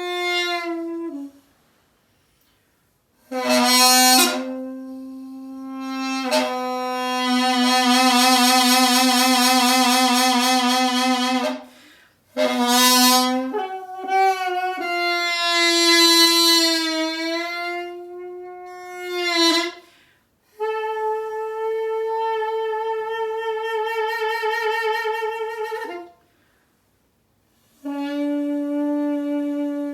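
Korean piri, a double-reed bamboo pipe, played in free improvisation: a single line of long held notes with wide, wavering vibrato and bends in pitch, broken by short pauses for breath.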